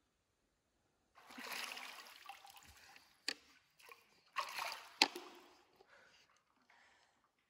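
Water in a cave pool splashing and sloshing as a person sitting in the shallows moves in it, starting about a second in. Two sharp smacks stand out, the second the loudest.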